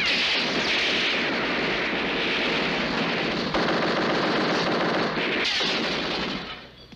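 Sustained machine-gun fire: a long, unbroken stretch of rapid shots that dies away shortly before the end.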